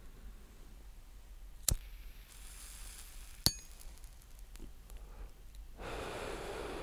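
Two sharp metallic clicks of a cigarette lighter, a second and a half apart, with a faint hiss between them, then a long breathy draw on the cigarette starting near the end.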